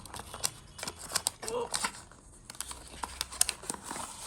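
Small paper documentation leaflets being handled and shuffled: rustling and crinkling of paper mixed with a quick string of clicks and taps.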